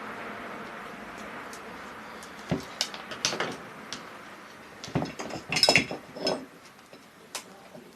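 Small metal clicks and clinks of a screwdriver and loose parts while the carbon-brush screws of a sewing machine motor are undone, in an irregular cluster of sharp taps through the middle and one more near the end. A steady background noise fades away over the first couple of seconds.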